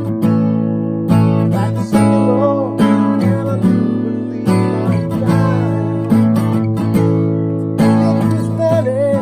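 Steel-string acoustic guitar strummed in a steady rhythm, the chords changing about once a second.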